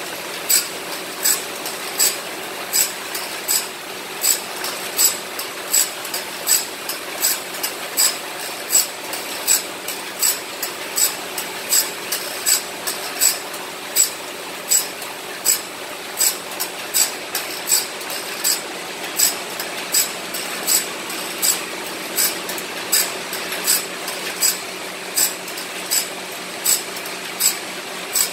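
Automatic bandsaw blade sharpening machine running: its motor hums steadily while the grinding wheel comes down on the teeth of a large sawmill bandsaw blade one after another, as the blade is fed on tooth by tooth. Each tooth gives a short, sharp grinding rasp, in an even rhythm of about three every two seconds.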